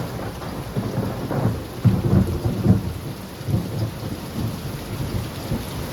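Heavy rain falling steadily, with thunder rumbling low through it in repeated surges, strongest about two to three seconds in.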